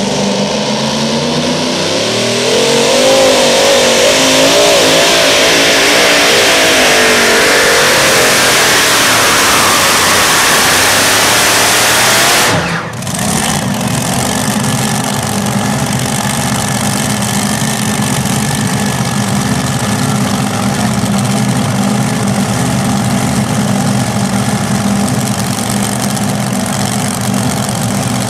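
Two supercharged V8 engines of a modified pulling tractor at full throttle through a pull for about ten seconds, their pitch wavering under load. The sound cuts back sharply about halfway through and then settles to a steady idle.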